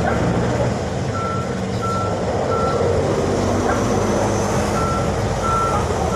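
A truck's reversing alarm beeping at one steady pitch, about one beep every 0.7 seconds with a pause in the middle, over the low running of its engine.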